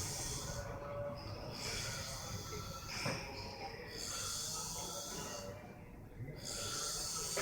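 A person snoring, a noisy rasping breath repeating about every two and a half seconds.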